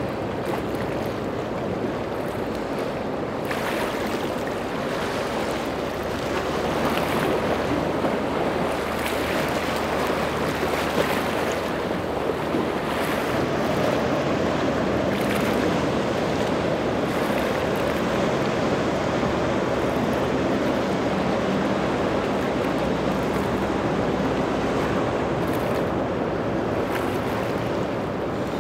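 Surf and choppy water rushing, with wind on the microphone and the low, steady drone of boat engines underneath.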